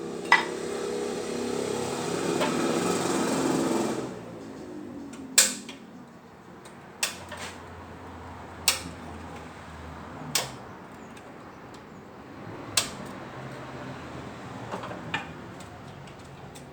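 Workshop work on a car transmission. A machine runs for about four seconds and cuts off suddenly, then single sharp metallic knocks and taps come every second or two.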